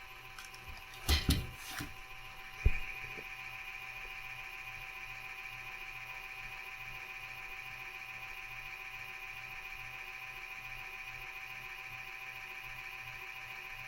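A PC cooling fan running noisily: a steady high whine over a low throb that pulses about three times a second. This is the abnormal fan noise being fixed. A few knocks and a sharp click come in the first three seconds.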